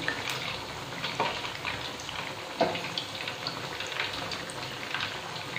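Rice-flour-battered cutlets deep-frying in hot oil on a high flame, a steady sizzle and bubbling as they crisp, with a few sharp clicks.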